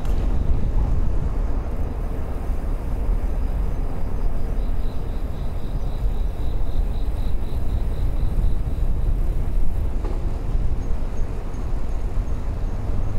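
Steady low wind rumble on the microphone of a moving bicycle, with road noise underneath. A faint, pulsing high tone comes in for a few seconds midway.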